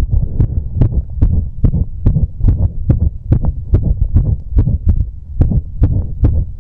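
A man's heartbeat, quickened after exercise: quick beats about two and a half a second over a low rumble, a rhythm the uploader calls irregular.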